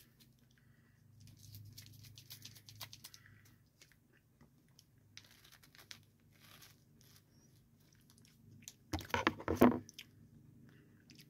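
Faint mouth sounds of eating a frozen orange freezer pop: soft crunching and chewing of the ice with small wet clicks. About nine seconds in there is a short, louder vocal sound.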